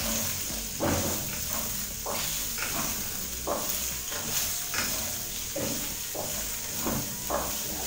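Pork pieces and sliced onions sizzling in hot oil in a frying pan, with a steady hiss, while a wooden spoon stirs and scrapes through them in repeated strokes.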